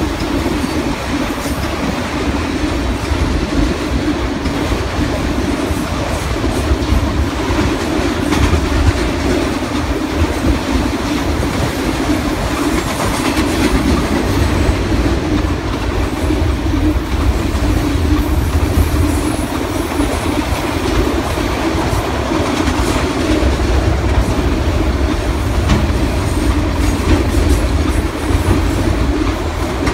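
Freight train of autorack cars rolling past across a trestle bridge: a steady rumble of steel wheels on rail with many irregular clicks.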